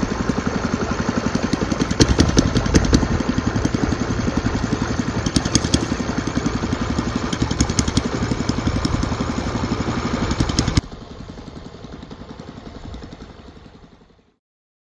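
Long-tail boat engine (long-shaft outboard) running at a steady speed with a rapid, even putter as it drives the boat along. About eleven seconds in the sound drops suddenly to a faint level and then fades out.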